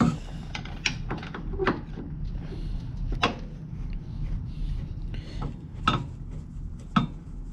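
Scattered light metal clicks and clinks as a screwdriver works small screws out of a Craftsman metal lathe's carriage, about half a dozen sharp ticks spread across the few seconds.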